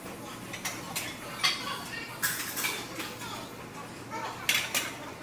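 Iron weight plates clinking and clanking on a loaded barbell as it is lifted and lowered, in a string of sharp metallic knocks.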